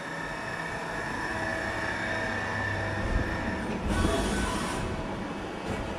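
Hyundai Wia HD2200Y CNC turning centre running through a dry cycle: a steady mechanical hum with a high whine, growing slightly louder, with a deeper rumble coming in about three seconds in.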